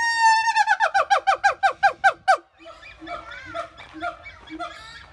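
Siamang calling: one long held whoop, then a quick run of about ten short notes that each slide down in pitch, ending about two and a half seconds in. Quieter mixed hoots follow, with a short low note repeating about twice a second.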